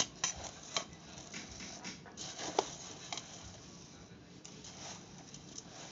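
Metal spoon stirring dry puffed rice in a steel bowl: the grains rustle and the spoon clinks against the bowl's sides at irregular moments, the sharpest clink about two and a half seconds in.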